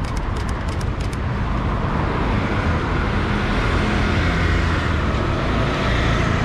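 Busy street traffic: motor vehicle engines running and tyre noise of vehicles passing, with a quick run of sharp clicks in the first second.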